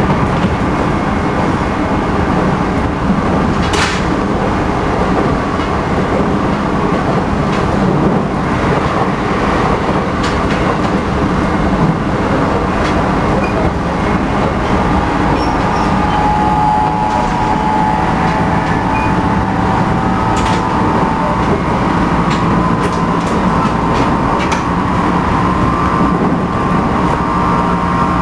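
JR Central 211 series electric motor car running at speed, heard from inside. Its MT61 internal-fan traction motors whine with a strong undulating beat, over steady rail rumble; the car is known for this abnormal noise. The whine climbs in pitch through the second half, with a couple of sharp clicks along the way.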